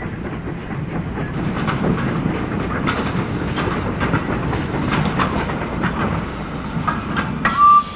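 Steam-hauled train of milk tank wagons rolling past, its wheels clicking over the rail joints above a low rumble. Near the end a loud whistle sounds, a short blast running into a second.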